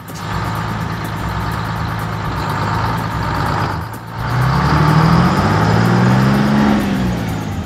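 Tractor engine running steadily. After a brief dip about four seconds in it comes back louder, its pitch rising and then falling.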